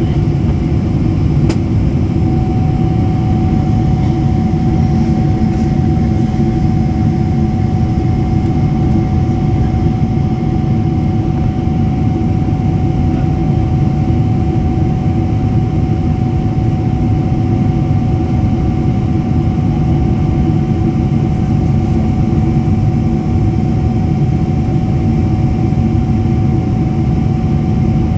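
Steady low roar of an airliner's engines and airflow heard inside the passenger cabin. A faint steady tone joins about two seconds in, just after a single click.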